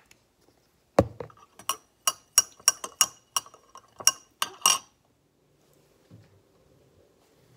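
Metal spoon stirring tea in a glass Pyrex measuring cup: a quick run of a dozen or so ringing clinks against the glass, which stops after about four seconds.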